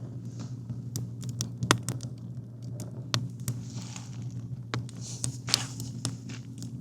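Campfire crackling, with irregular sharp pops and snaps and brief hisses, over a steady low hum.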